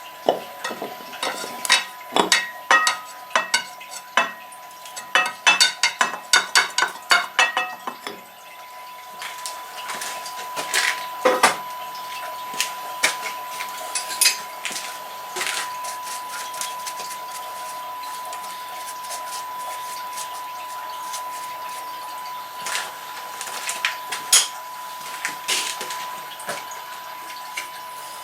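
Metal parts clinking and knocking together as they are handled, with a quick run of light clinks in the first eight seconds and then scattered single knocks. A steady high, thin tone runs underneath.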